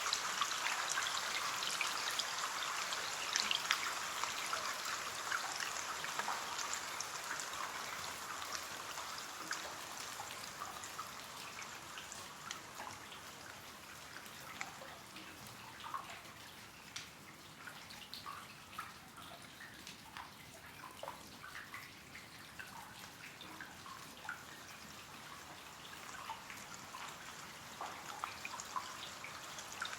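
Rain falling on a window: a steady hiss of rain with many separate drops ticking on the glass, easing from a heavier shower to a lighter patter of scattered drops.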